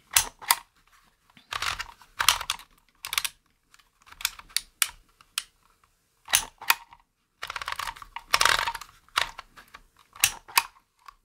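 Dymo Omega handheld label embosser in use: its letter wheel is clicked round and the handle squeezed to press letters into the plastic tape. The result is irregular clusters of sharp clicks and clacks, some in short rattling runs.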